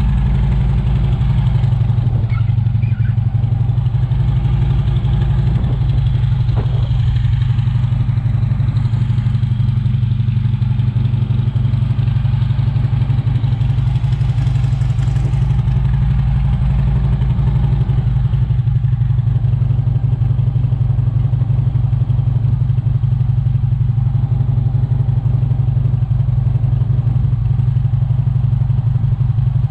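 2015 Harley-Davidson Road King's air-cooled Twin Cam 103 V-twin idling steadily through its aftermarket Vance & Hines exhaust.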